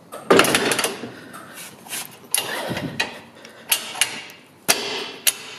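Steel trailer-hitch parts handled by hand: a scraping clatter, then sharp metal knocks and scrapes as a trailer's ball coupling is set over the tow ball in the tractor's hitch receiver.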